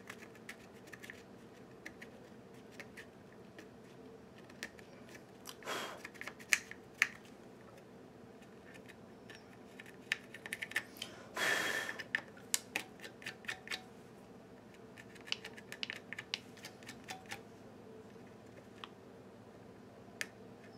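Light, irregular scraping and ticking of a pencil end rubbing old thermal paste off a bare graphics chip on a motherboard, with a brief louder rustle about six seconds in and a longer one, the loudest sound, around eleven to twelve seconds in.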